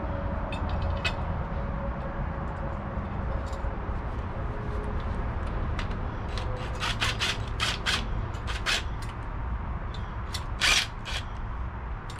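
Yellow cordless drill/driver running a motor-mount bracket bolt into an engine block in several short bursts, the longest and loudest about ten and a half seconds in. Light metallic clicks of a bolt being handled come in the first few seconds, over a steady low hum.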